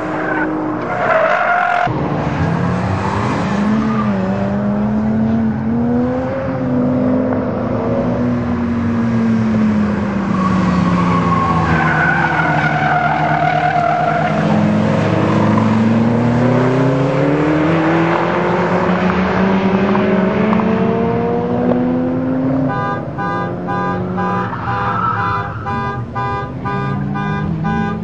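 TVR Tuscan Racer's AJP engine revving hard and easing off again and again, its pitch climbing and dropping as the car is thrown through a cone course, with some tyre squeal. Near the end a fast, regularly repeating electronic beeping runs over the engine.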